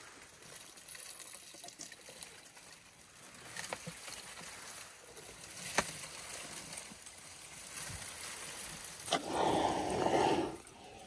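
Young African elephant browsing at close range on dry acacia: leaves and twigs rustle and crackle as she strips and chews them, with a few sharp twig snaps. About nine seconds in, a loud scraping rub lasts about a second as her trunk brushes against the camera.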